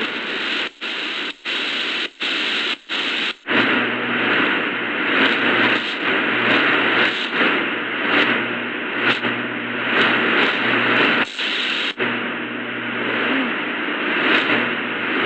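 Shortwave static and hiss from the Prunus J-160 radio's speaker, tuned between stations. It cuts out briefly about five times in the first few seconds. From about four seconds in a steady low hum runs under the hiss, with two more brief cut-outs later.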